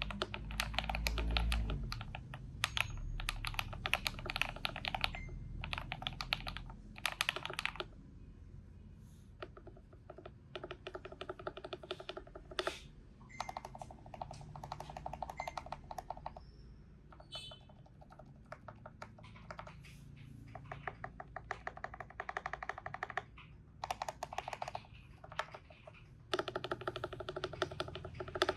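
Typing on a Feker IK75 mechanical keyboard with lubed Akko Vintage White linear switches, a PE foam mod and Everglide V3 stabilisers: fast bursts of key clicks a few seconds long, broken by short pauses.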